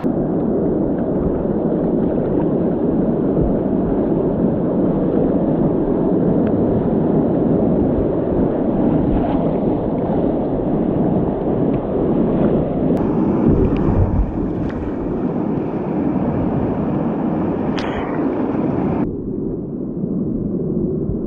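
Loud, steady rushing of whitewater rapids on a river, with a low rumble that may include wind on the microphone.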